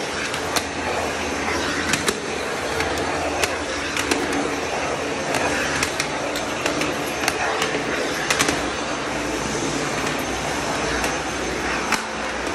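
Vacuum cleaner running steadily as its floor brush is pushed over stair steps and floor tile, with scattered sharp clicks throughout.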